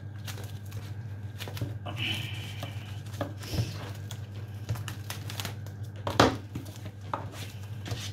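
Cling film crinkling and rustling as it is pulled tight and pressed around a wrapped baguette sandwich, with scattered small clicks and one sharp knock about six seconds in.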